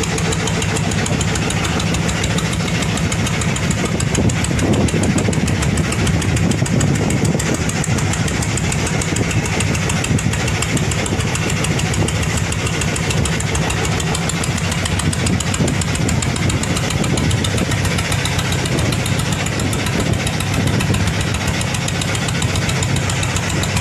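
Fishing boat's engine running steadily at close range, with a fast, even pulsing beat.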